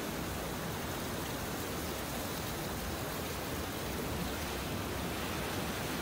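Sea surf as a steady, even rush of noise, without single waves or impacts standing out.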